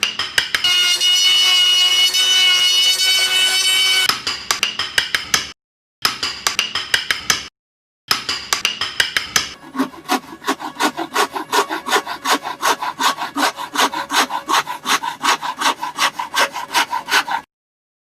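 A hand tool worked back and forth on wood in quick, even strokes, about four a second. A ringing tone sounds under the strokes for the first few seconds. The strokes come in several runs broken by short silences.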